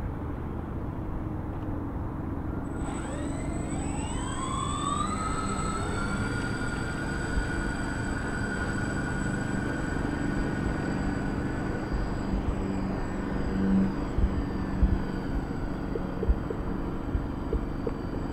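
Several motors and propellers of a large multi-engine model flying boat spooling up together for takeoff, starting about three seconds in, their whines rising in pitch over a few seconds and then holding steady at full power, over a low rumble.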